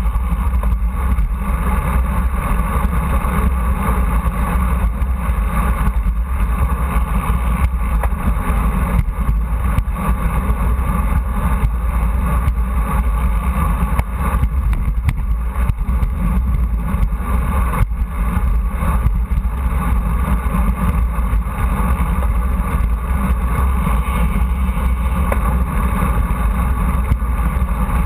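Steady, loud wind rumble on the microphone of a handlebar-mounted camera on a moving road bike, with tyre and road noise mixed in.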